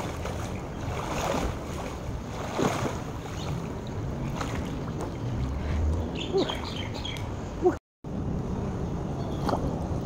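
Swimming-pool water lapping and splashing as a swimmer swims through it, with wind buffeting the microphone at the pool's edge. The sound drops out completely for a moment about eight seconds in.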